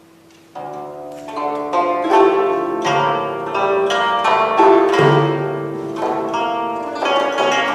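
Guzheng being plucked: after a soft lull, playing starts about half a second in with a run of quick notes and bright struck chords that grows steadily louder.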